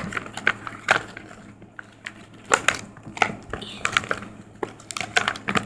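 Plastic packaging and a vinyl inflatable toy being handled and unwrapped: irregular crinkling, crackling and small clicks.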